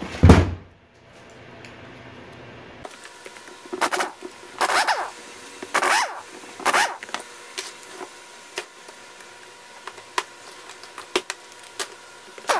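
A heavy thump as the outboard powerhead block is turned over on the bench. Then an air impact wrench fires in four short bursts, its motor whine rising and falling, as it runs out powerhead bolts. Sharp metal clinks follow as bolts and the socket are handled.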